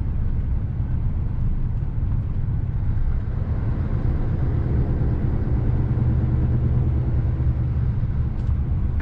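Lorry engine and road rumble heard from inside the cab while driving, a steady low drone.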